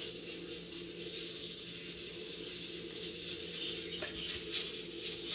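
Small kitchen knife peeling the skin off cooked chayote held in the hand: faint soft scraping sounds over a steady low hum, with one light click about four seconds in.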